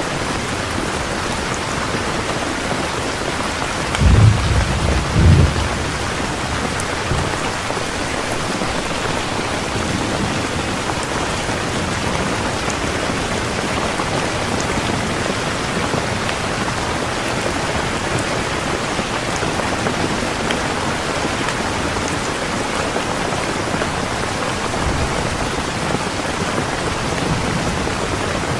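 Heavy rain falling steadily in a thunderstorm, with a short low rumble of thunder about four seconds in that swells twice over a second and a half.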